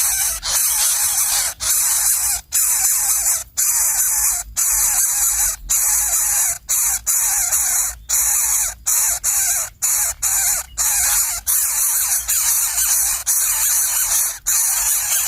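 Loud, continuous harsh hissing noise, broken by brief gaps about once a second.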